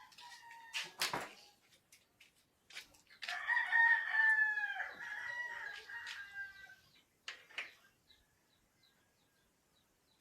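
Rooster crowing once, a long call of about three and a half seconds that sags in pitch at its end, with a few sharp clicks before and after it.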